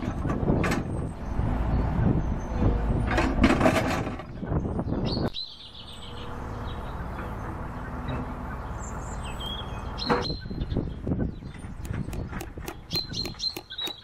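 Komatsu track excavator's diesel engine running and knocking as its bucket drives a timber fence post into the ground, stopping suddenly about five seconds in. Then birds chirping over a faint steady hum, a single knock, and near the end a run of quick clicks as a hand tool works the fence wire at the post.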